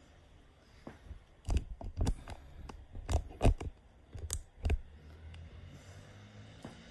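Handling noise: a run of about a dozen irregular clicks and knocks close to the microphone, starting about a second and a half in and lasting about three seconds.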